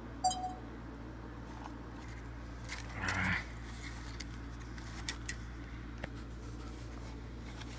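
Short electronic beep from a Sony CX240 Handycam's touch panel as a menu button is pressed, followed by a brief rustle and a few light taps on the camcorder over a steady low hum.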